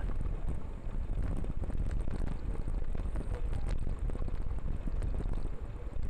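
Steady wind buffeting the microphone of a camera riding in a bunch of mountain bikes at speed, with low road rumble and faint small rattles underneath.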